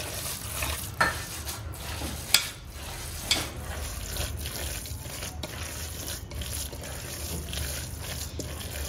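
A hand mixing and squishing soaked cooked rice with sesame oil, sambar powder and salt: a soft, uneven wet squelching, with a few sharp clicks in the first few seconds.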